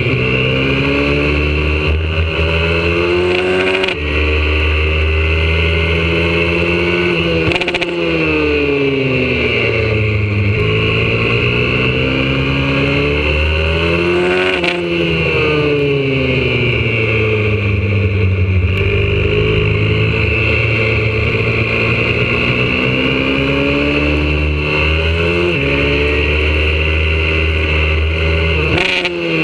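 YCF 125cc four-stroke pit bike engine at full tilt round a circuit, heard from a camera on the bike: it revs up in long climbs broken by quick gear changes, then drops away as the rider slows for corners, several times over.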